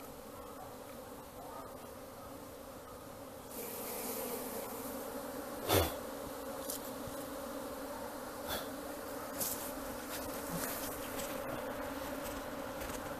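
Swarm of Apis honeybees buzzing in a steady hum that grows louder about three and a half seconds in. A few short knocks are heard over it, the loudest a little before the middle.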